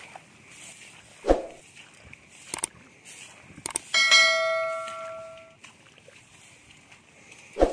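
Subscribe-button animation sound effect: two quick clicks, then a bell chime that rings for about a second and a half and fades out. A dull thump about a second in and another at the very end, over faint outdoor background noise.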